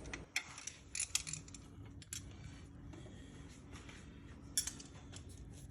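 Scattered light metallic clicks and clinks of hand tools and engine parts being handled, with a few sharp ones about half a second and a second in and again near the end.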